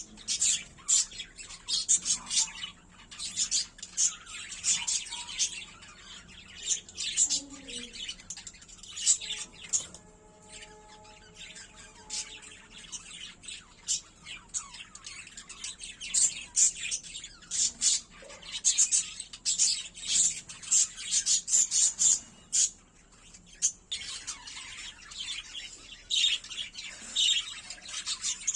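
Lovebirds chirping and squawking in many short, sharp, high-pitched calls. The calls are busy at first, thin out for a few seconds about a third of the way in, then pick up again and stay busy past the middle.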